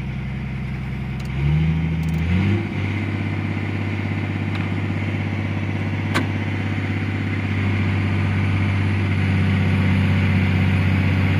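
Caterpillar 345 excavator's diesel engine, heard from inside the cab, idling and then stepping up in speed twice, about a second and a half in and again a second later, then running steadily at the higher speed. It holds that speed without hunting up and down, the sign that the excavator's intermittent acceleration fault is cured.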